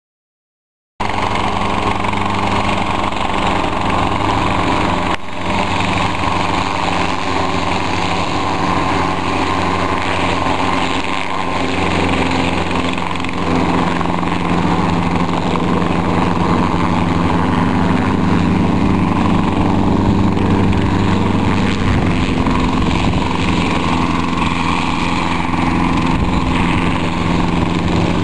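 Light helicopter's engine and rotor running steadily, a low, even throb that starts about a second in and holds throughout, with a brief dip a few seconds later.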